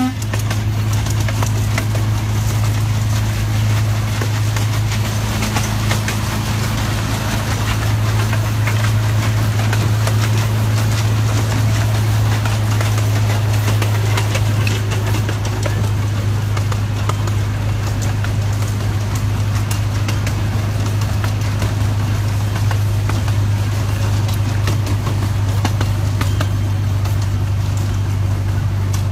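Ride-on miniature train locomotive running steadily with a low engine hum, its wheels clicking and clattering on the track as the train moves along.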